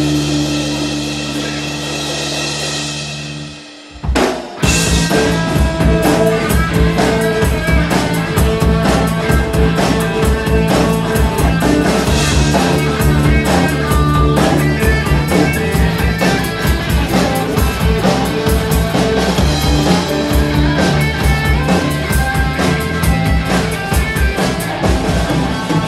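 Live rock band with two electric guitars and a drum kit playing an instrumental passage. A held chord rings out and fades, the music breaks off briefly about four seconds in, then the full band comes back in with a steady drum beat under the guitars.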